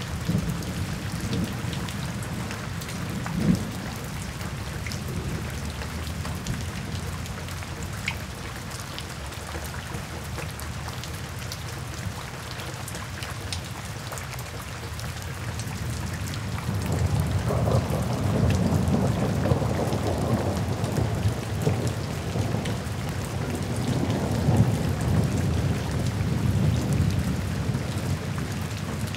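Steady rain pattering, with fine drop ticks. About halfway through a low rumble of rolling thunder swells in and goes on, rising and falling.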